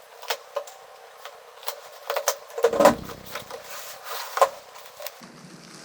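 Cardboard box and packaging being opened and handled: scattered taps, knocks and rustles, the loudest a little under three seconds in and again past four seconds.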